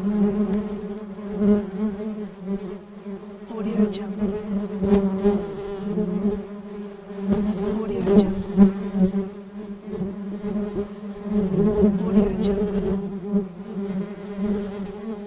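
A bee flying: a continuous low buzz with a slightly wavering pitch, swelling and fading again and again as it moves about.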